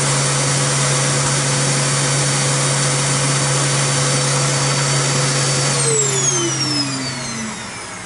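An Aerus Electrolux upright vacuum cleaner's motor runs at a steady pitch. About six seconds in it is switched off, and its hum and whine fall in pitch and fade as the motor winds down.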